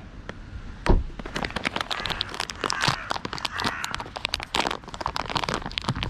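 Paper bag crinkling and rustling in the hand, a dense run of small crackles and clicks with one sharper click about a second in.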